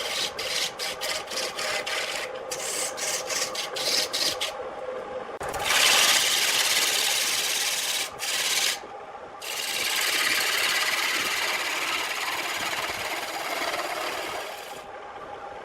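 Wood on a turning lathe being worked with a hand tool, over the lathe's steady hum. For about the first four seconds the tool touches the wood in short rasping strokes, several a second. After that it cuts or scrapes in long continuous passes, with brief pauses.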